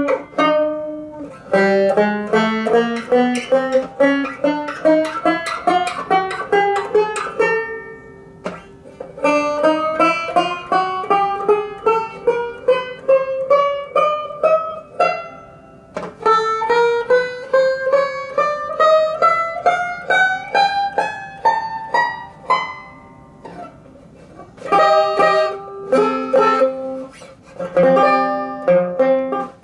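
Vintage banjo being test-played: single plucked notes climbing up a scale in three runs of several seconds each, then picked chords in the last few seconds.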